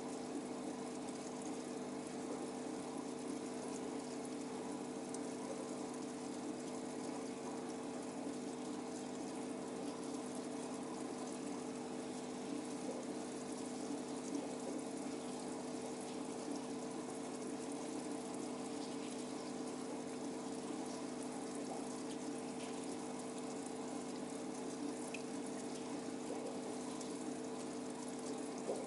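Aquarium pump running steadily: a constant electric hum with water bubbling and trickling over it.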